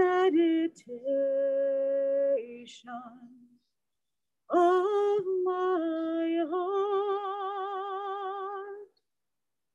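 A woman singing alone without accompaniment, a slow melody of long held notes, the longest of them wavering with vibrato. She stops briefly a little before halfway and again near the end.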